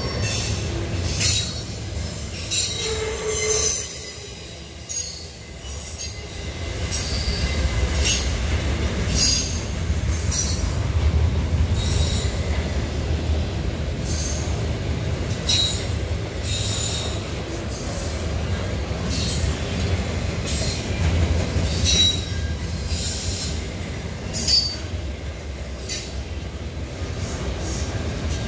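Double-stack intermodal freight cars rolling past close by: a steady low rumble of steel wheels on rail, broken by frequent short, high-pitched wheel squeals.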